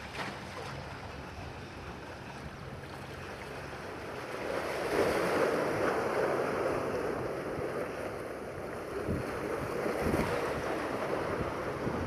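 Waves washing and breaking on a rocky shore: the wake of a passing high-speed catamaran ferry, swelling into a louder rushing surf about four and a half seconds in, with a second surge near ten seconds.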